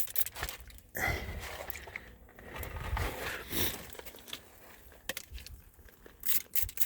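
Aerosol rubber protectant sprayed onto a car's front-suspension rubber boots and bushings, hissing in a few short bursts, with sharp clicks and handling noise near the end.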